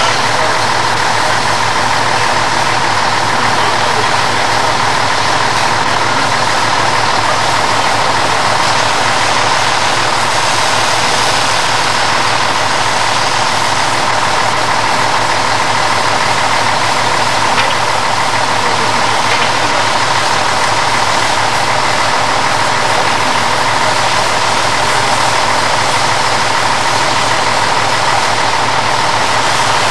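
Fire engine motors running steadily while pumping water to the hose lines: a loud, continuous drone with no breaks.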